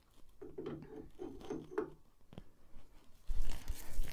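Handwheel of a Singer 66-6 sewing machine being slid onto its freshly oiled shaft. Metal rubs and scrapes in short stretches, then a single click. The loudest sound is a rustling scrape near the end.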